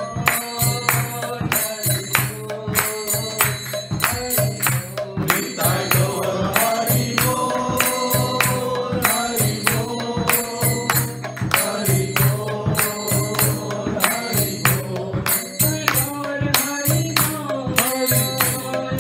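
A woman singing a devotional chant, keeping time with karatalas (small brass hand cymbals) struck in a steady rhythm, over a steady low drone.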